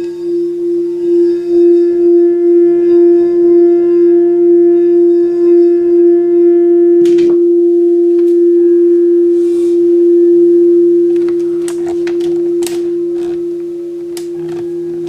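Rainbow-coloured crystal singing bowl sounding one steady tone as a wand circles its rim, the level swelling and ebbing in a slow pulse. About seven seconds in a click is heard as the wand is set down, and the bowl rings on, slowly fading. A few light clicks come near the end.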